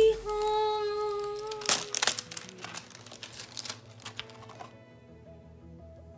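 Clear plastic shrink-wrap crinkling and tearing as it is peeled off a small cardboard box, stopping about four and a half seconds in. Background music runs underneath, with a long held note at the start.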